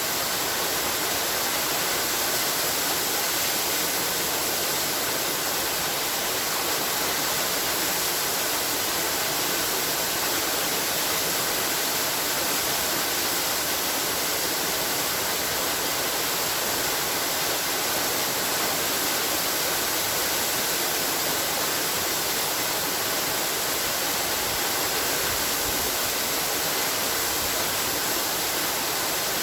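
Waterfall: water falling and splashing in a steady, unbroken rush, with a bright hiss.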